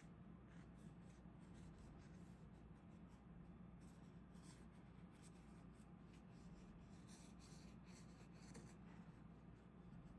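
Faint scraping and rubbing strokes, loosest at first and thickest in the middle, over a low steady hum.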